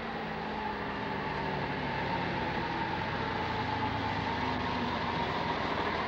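Engine of a yellow postal bus approaching along the road, running steadily and growing slowly louder.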